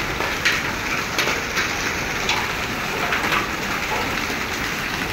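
Steady patter of a hailstorm, rain and hail falling, with a few sharper ticks scattered through it.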